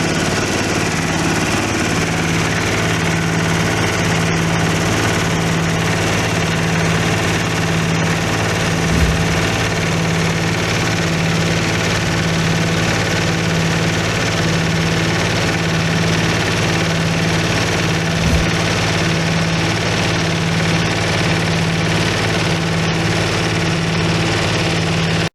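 Rice husk crushing machine running steadily with a constant mechanical hum, and two low thumps about nine and eighteen seconds in.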